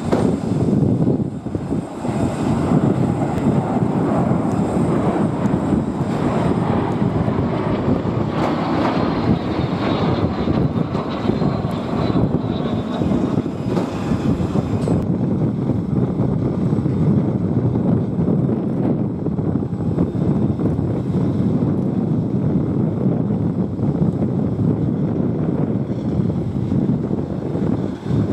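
Aero L-39 Albatros jet trainers' turbofan engines, loud and steady as the formation flies past, with a faint falling whine near the middle. About halfway the sound changes abruptly and loses its high hiss, continuing as a single L-39 taxis on the runway.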